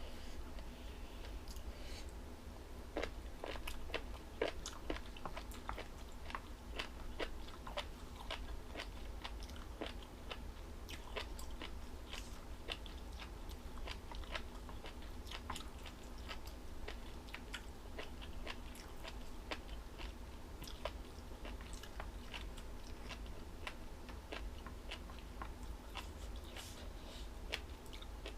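Close-up chewing and biting of crunchy jellyfish salad, with many short, crisp crunches at an irregular pace.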